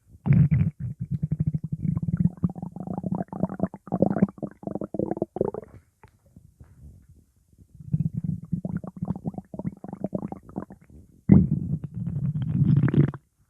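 Stomach growling: long gurgling rumbles made of rapid little pops and bubbling. It comes in two stretches, with a brief near-silent pause about six seconds in.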